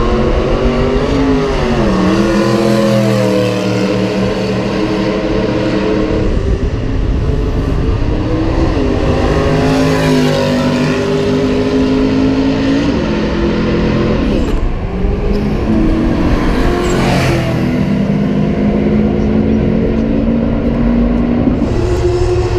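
Cars accelerating flat out down a drag straight, with loud engines. Each engine note climbs and then drops back at every upshift, over and over, and one car passes close midway.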